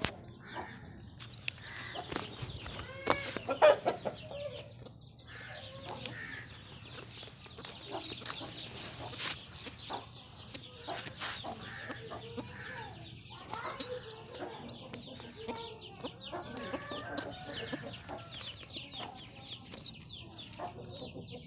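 Chickens clucking, with many short high chirps repeating throughout and a few sharp knocks.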